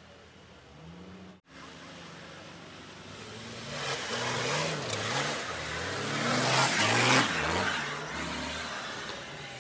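Off-road 4x4 engine revving up and down repeatedly under load, its pitch rising and falling in quick surges. A rushing noise swells with it, loudest about seven seconds in, then eases off.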